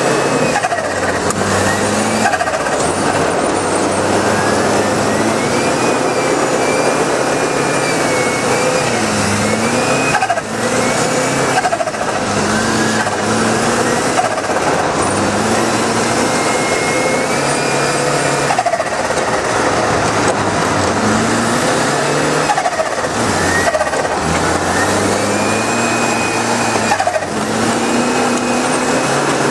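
Car engine driven hard on a snow and ice track, its pitch climbing and then dropping back every second or two as the throttle and gears are worked. A steady hiss runs under it.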